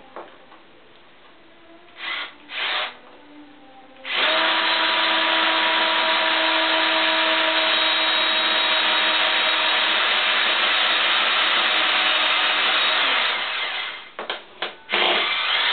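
An electric power tool's motor: two short bursts, then a long steady run of about nine seconds that winds down, a few brief bursts, and it starts up again near the end.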